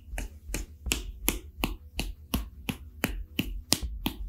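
A hand tapping repeatedly on a bare heel in self-massage: an even beat of light slaps, about three a second.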